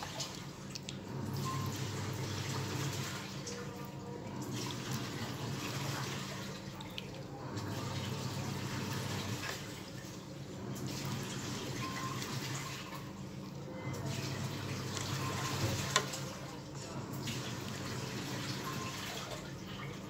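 Chicken feet simmering in thick adobo sauce in a pan, giving a wet bubbling and sizzling that swells and eases every three seconds or so as a wooden spatula stirs them. One sharp click comes about 16 seconds in.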